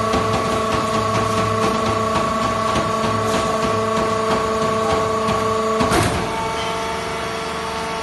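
Vertical hydraulic fiber baler's power unit running, a steady whine of the electric motor and hydraulic pump. A sharp clack about six seconds in, after which the whine changes pitch and drops slightly in level.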